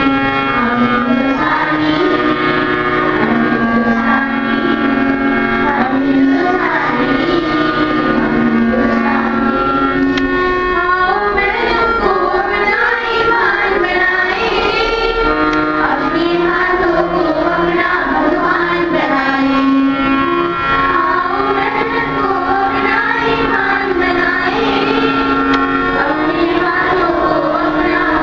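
Children singing together in chorus with instrumental accompaniment, wavering sung melody over steady held notes.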